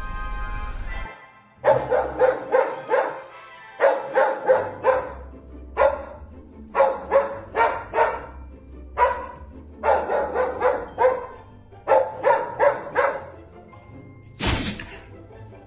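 Music for about the first second, then a small dog barking over and over in quick runs of several barks with short pauses between. Near the end there is one loud, short, noisy burst.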